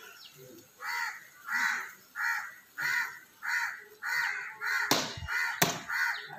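Crows cawing over and over, about ten short, harsh caws at one to two a second, with a couple of sharp clicks about five seconds in.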